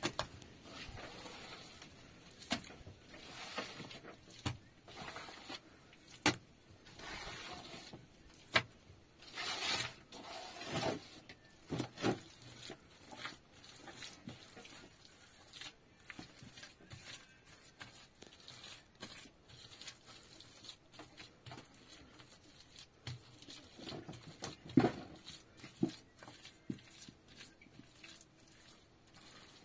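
Irregular knocks, clicks and clattering handling sounds, with a louder rustling burst about ten seconds in and a sharp knock near the end.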